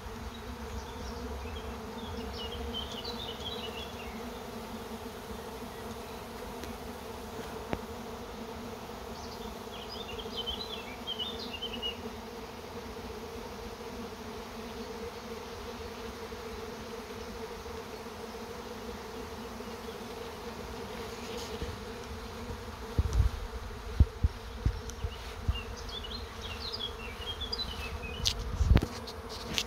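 A swarming honeybee colony in flight: a steady, loud, even hum of thousands of wingbeats. Near the end a few low thumps rise above the hum.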